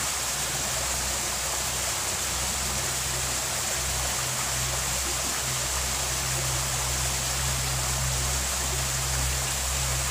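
Small rocky stream flowing steadily: a constant rushing hiss of water running over stones.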